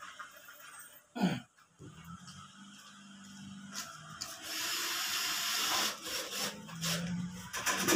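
Corded electric drill running in short spells, driving screws up through a ceiling board into the light-steel ceiling frame, loudest as a screw bites in the middle of the stretch. A sharp knock comes about a second in and another near the end.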